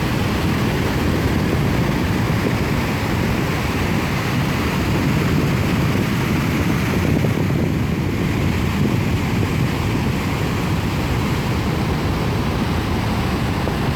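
Ocean surf with wind buffeting the phone's microphone: a steady, loud rushing noise, heaviest in the low end, with no separate events.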